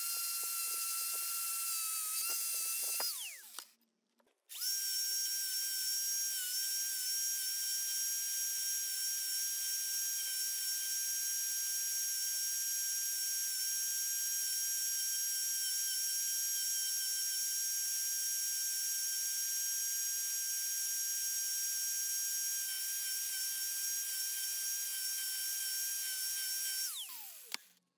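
Electric angle grinder fitted with a hook-and-loop sanding pad, running with a steady high whine while wood is sanded against the disc. About three seconds in it winds down and stops, starts again about a second later, and winds down again near the end.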